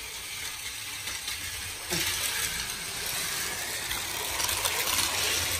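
Several motorised toy Shinkansen trains running on plastic track: the small motors and wheels make a steady whirring rattle that gets louder about two seconds in.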